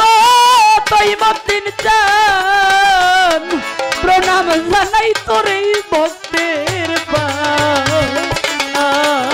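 Bengali Baul folk music: a wavering melody with vibrato played over tabla-style hand drums and other percussion strokes.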